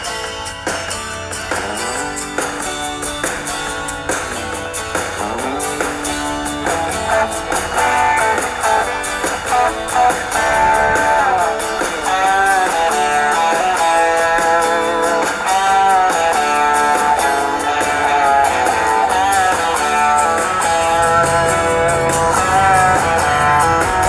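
Instrumental background music led by guitar, with a melody of plucked notes; a low bass line comes in near the end.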